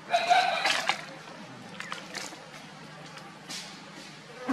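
A macaque gives one loud, high-pitched call lasting about a second, then a brief lower call near the end.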